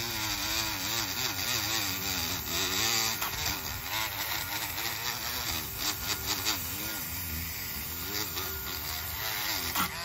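Dremel rotary tool spinning a small wire brush wheel against an aluminium alloy wheel, stripping stubborn old paint. Its whine wavers up and down in pitch throughout.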